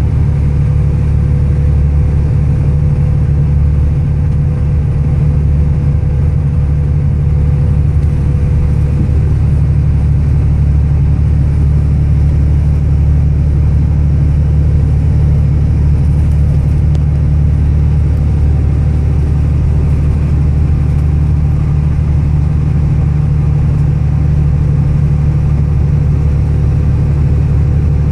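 Steady low drone of a car being driven, heard from inside the car: engine and road noise without change in pace.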